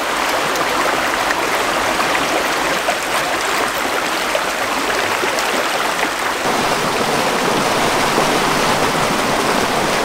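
Small rocky creek running over stones in shallow riffles: a steady rushing of water.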